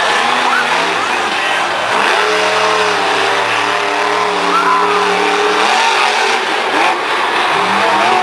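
Monster truck's supercharged V8 revving hard, its pitch climbing and falling in quick swings near the start and end, then held high and steady through the middle.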